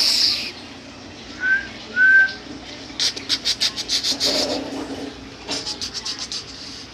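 Two short whistle-like chirps about half a second apart, followed by quick runs of clicks.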